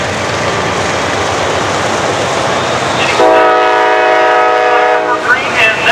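Steady noisy rush of a passing train, then a long blast of its multi-tone air horn, a loud chord of several held notes starting about three seconds in and cutting off about two seconds later.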